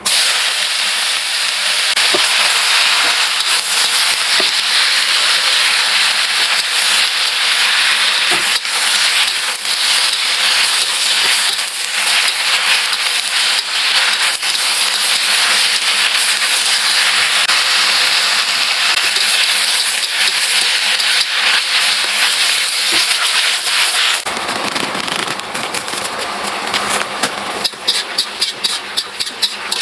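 Food hitting hot oil: a loud sizzle that starts all at once, full of crackling. About 24 seconds in it eases and breaks into separate pops and spatters.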